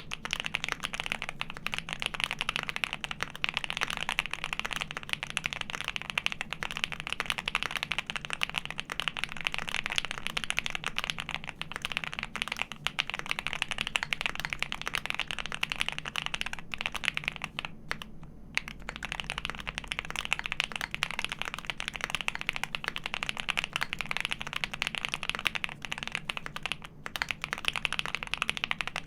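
Continuous typing on a custom mechanical keyboard with a Mr. Suit case, PC plate, Krytox-lubed Alpaca linear switches on 65 g springs and GMK Serika keycaps: a dense run of keystroke clacks, with one brief pause about two-thirds of the way through.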